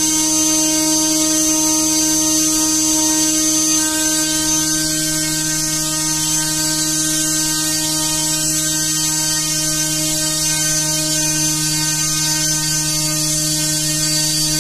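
3D-printed brushless motor with a PLA rotor spinning a 9050 propeller at a steady speed: an even, pitched motor-and-propeller hum over a high airy hiss.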